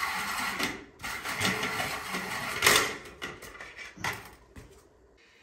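Square metal shower drain grate scraping and rubbing against the drain body as it is test-fitted for height against the tile, loudest about three seconds in, with a single knock about four seconds in.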